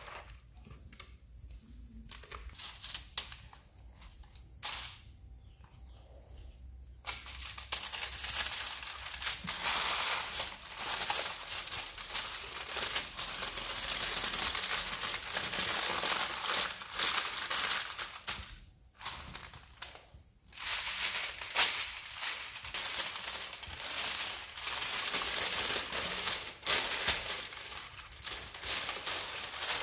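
Quiet handling sounds of hands rubbing marinade into a raw fish, then, about seven seconds in, aluminium foil crinkling and crackling continuously as it is folded and pressed around the fish, with a brief pause a little after the middle.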